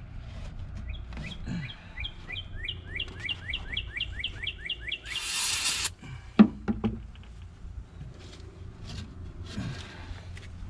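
A bird singing a fast run of repeated down-slurred chirps, about four a second, for some four seconds. Then a brief hiss about five seconds in, and a sharp knock just after it, the loudest sound.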